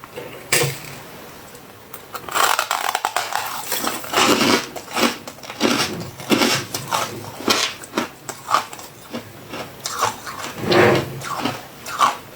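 Close-miked crunching of soft freezer frost, a snow-like shaved ice: one click, then from about two seconds in a quick, irregular run of short crunches and scrapes.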